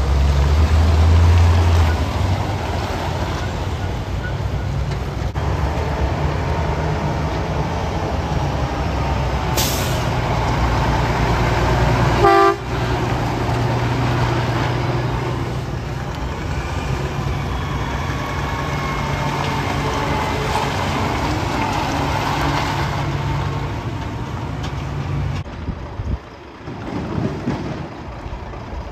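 Heavy diesel engines of concrete mixer trucks running as they pass, a steady low drone. A brief high hiss comes about ten seconds in, and a short pitched toot a couple of seconds later. The drone fades near the end.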